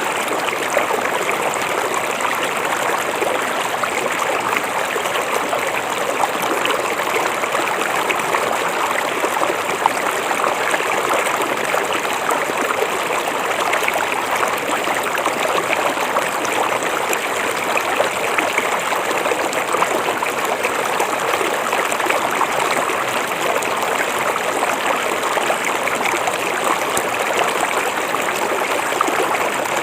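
A river flowing steadily, a continuous rush of water with fine splashing and trickling through it.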